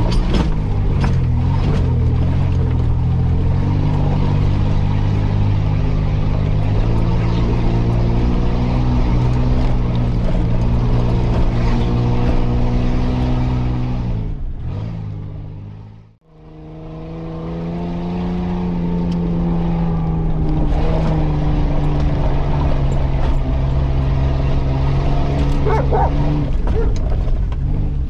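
Off-road 4x4's engine running steadily as it drives a muddy forest trail, heard from inside the cab, its pitch shifting a little now and then. About halfway through, the sound fades out completely and then fades back in.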